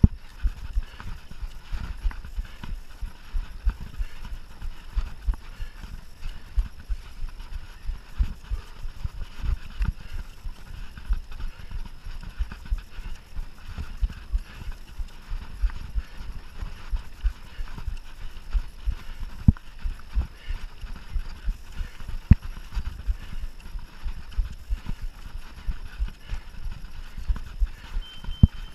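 Mountain bike rattling over rough trail, with frequent irregular knocks and thumps from the ground and bike. A brief high tone sounds near the end.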